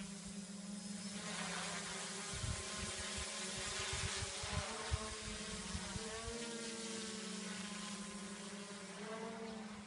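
3D-printed drone's electric motors buzzing in flight, with a steady hum and a rushing hiss that swells about a second in. The pitch shifts around six seconds and again near the end as the throttle changes.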